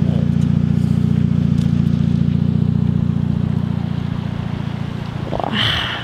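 A vehicle engine idling with a steady low hum that eases off slightly toward the end; a brief higher-pitched sound cuts in about five seconds in.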